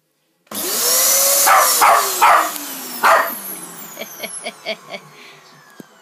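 Cylinder vacuum cleaner motor comes on loud about half a second in, then its tone falls in pitch and fades. A small terrier barks about four times over it, then gives a run of shorter, softer yaps.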